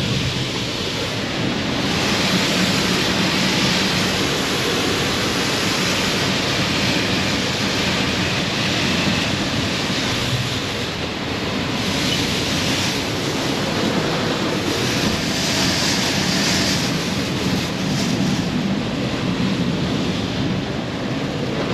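High-pressure water jets of an automated truck wash spraying against a semi truck's cab, heard from inside. It is a steady heavy rush of water that swells and eases several times as the jets pass over.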